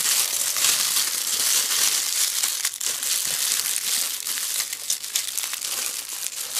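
Plastic packaging crinkling and rustling continuously as it is handled and pulled open.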